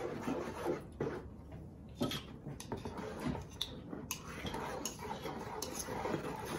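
Kitchen utensils clinking and scraping: a spoon tapping as it scrapes melted margarine out of a small bowl, and a wooden spoon stirring and knocking in a plastic mixing bowl, giving scattered light clicks and taps that come thicker from about four seconds in.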